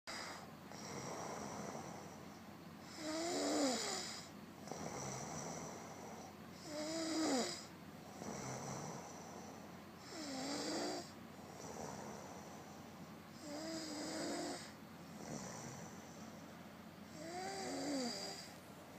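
Snoring in a slow, regular rhythm: five loud snores about three and a half seconds apart, each with a wavering squeak that bends up and down in pitch, and a softer breath between them.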